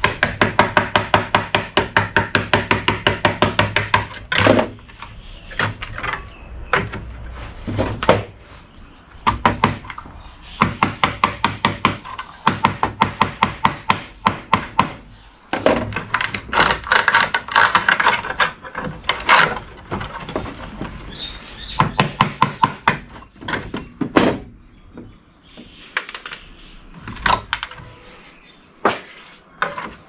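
Runs of rapid tapping, about six strikes a second for a few seconds at a time: a tool being hammered against a flat screwdriver to chisel components off a circuit board. Single knocks and clatters come between the runs.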